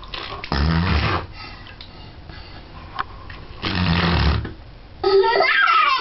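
Fart noises made with a plastic cup in bathwater: two low, buzzy blurts, each about half a second long. Near the end, a child laughs in high, rising and falling squeals.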